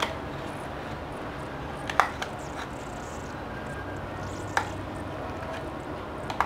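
Metal spoon knocking against a plastic measuring cup and plate while scooping out mayonnaise: a few short sharp taps, the loudest about two seconds in, over a steady background hiss.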